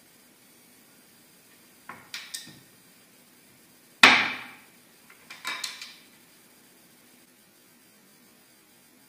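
Pine drawer front knocked by hand against the drawer box: a few light wooden knocks about two seconds in, one sharp loud knock about four seconds in, then a quick run of smaller knocks and rattles.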